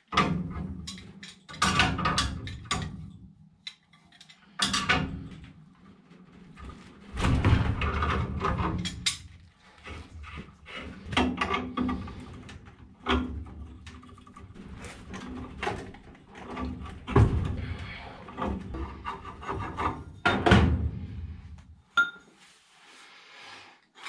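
Wrenches clanking and scraping on steel gas pipe and fittings as the union on a furnace's gas line is broken loose and the gas valve connection worked apart: a long run of irregular metal knocks and clicks, loudest in a few clusters.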